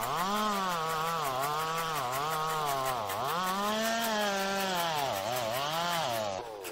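A homemade chainsaw cutting through a wooden beam. Its motor pitch sags each time the chain bites under load and recovers between strokes. Near the end the motor sound drops away.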